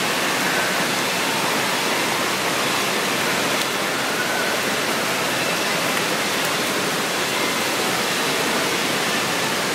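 Steady rushing of water in a shallow water-park pool, an even continuous wash of sound.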